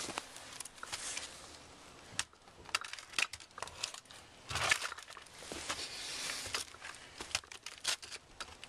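Handling noise: irregular rustling and crunching with scattered clicks and light knocks as a plastic laptop is turned around and propped up on a masonry post.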